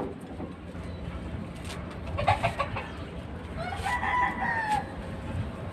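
A rooster crows once, an arching call of a little over a second about four seconds in. Scattered short clicks and rustles of braided nylon rope being handled come through around it.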